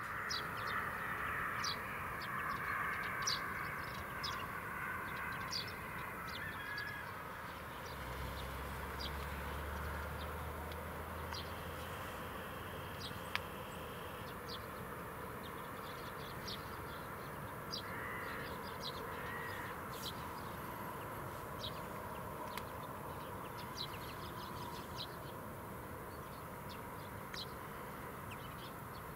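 Faint, steady far-off hum of an Airbus A319's engines running at low power at the far end of the runway, with scattered short bird calls and crow caws over it.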